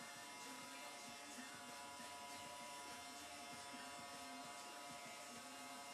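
Small electric drill motors of a four-spindle bee-frame drilling jig running steadily with no load, the bits spinning free of the wood.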